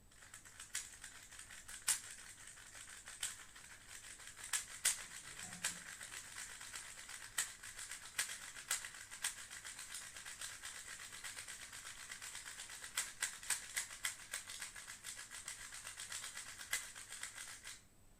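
Rubik's speed cube being turned quickly and continuously, its plastic layers making a steady rattle of small clicks with sharper clacks among them, stopping shortly before the end.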